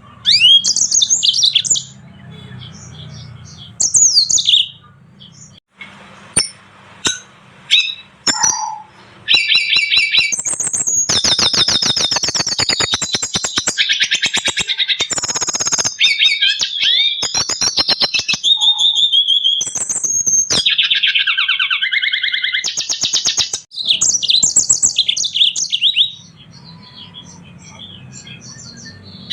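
Small caged finches of canary and siskin types singing, as in a mixed masteran song recording. Scattered high chirps for the first few seconds, then a long unbroken run of fast trills and warbling phrases from about nine seconds in until near the end, with a faint low hum in the quiet gaps.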